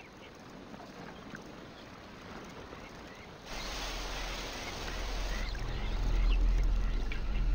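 Scattered short chirps of birds over quiet riverside ambience. About three and a half seconds in, a hiss and a low rumble start suddenly and build in loudness, with faint chirps still over them.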